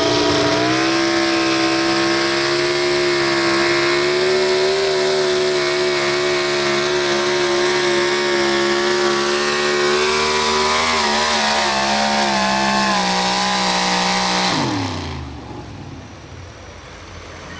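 Pro Stock 4x4 pulling truck's engine held at high revs under full throttle while pulling the sled. The pitch stays nearly level, sags slightly about eleven seconds in, then falls sharply near the end as the throttle is let off.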